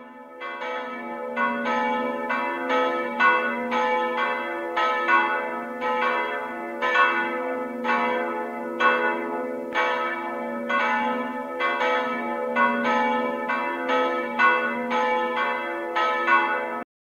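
Church bells ringing, several bells struck in turn about twice a second over a steady low hum, stopping abruptly near the end.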